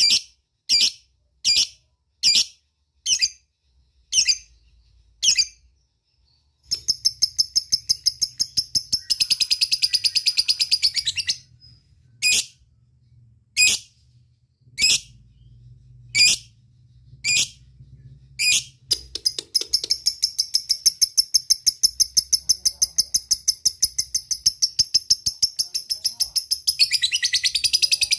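Lovebird calling: sharp high single chirps at about one or two a second, broken by a rapid chattering trill (ngekek) about a quarter of the way in, then a long unbroken ngekek trill of quick, even pulses from about two-thirds of the way in to the end.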